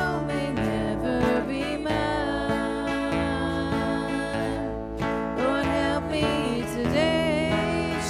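Gospel song performed live: several women's voices singing together over instrumental accompaniment.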